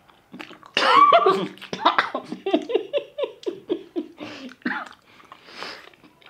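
Laughter through a mouthful of food: a loud spluttering outburst about a second in, then a run of short 'ha' pulses falling in pitch that die away, with quieter breathy sounds after.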